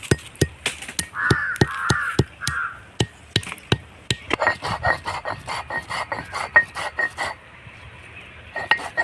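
A crow cawing three times, between about one and three seconds in, over a run of sharp, irregular knocks and clicks that grow denser about four seconds in.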